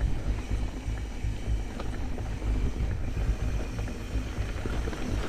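Mountain bike riding over a dirt trail: steady wind rumble on the microphone, with scattered clicks and rattles from the tyres and bike.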